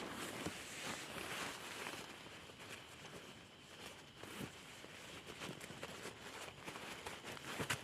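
Footsteps of a person walking on rough outdoor ground, faint, easing off briefly about midway before picking up again.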